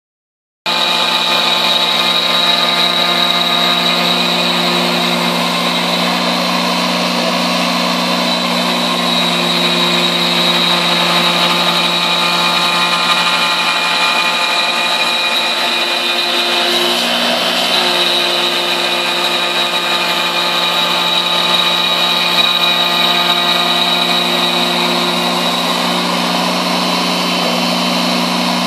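Porter-Cable router running as the spindle of a CNC router while it surfaces a red oak slab, a steady high-pitched whine over cutting noise. It starts abruptly just after the beginning and keeps a constant pitch.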